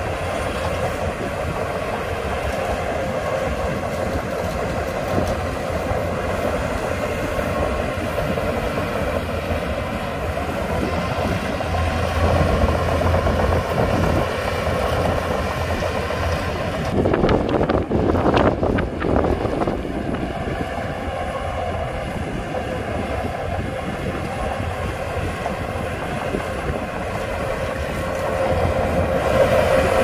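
Shantui DH17C2 crawler bulldozer's diesel engine running steadily under load while it pushes soil, with the rattle of its steel tracks. It grows louder and rougher for a few seconds past the middle.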